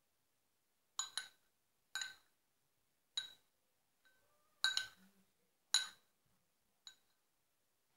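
Metal spoon clinking against the inside of a ceramic bowl while stirring, about seven sharp strikes roughly a second apart, each with a short ring.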